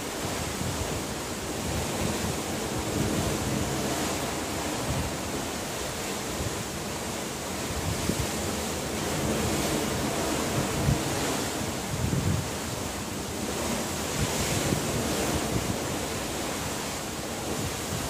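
Steady rush of wind and sea at a ship's rail, with wind gusts buffeting the microphone in low rumbles and a few brief thumps.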